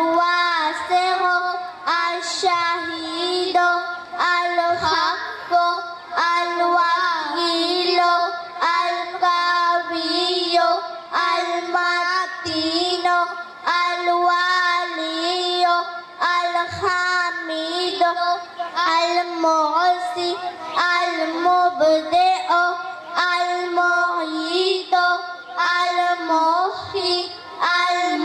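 A single high voice singing a devotional naat in long, held, ornamented phrases.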